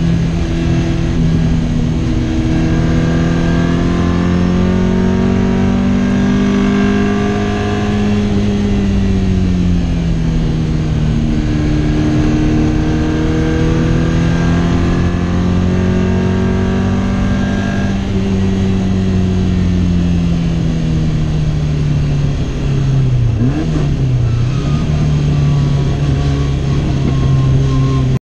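Race-prepared Lotus Twin Cam four-cylinder engine of a Tornado Fiat 600, heard from inside the cabin on track: the engine note climbs slowly as it accelerates, falls away as the throttle comes off, climbs again, and gives a quick dip and recovery shortly before the end. The sound cuts off suddenly right at the end.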